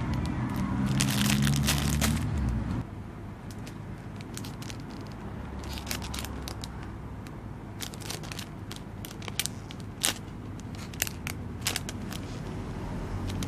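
Plastic packaging crinkling and crackling as it is handled, with scattered sharp crackles.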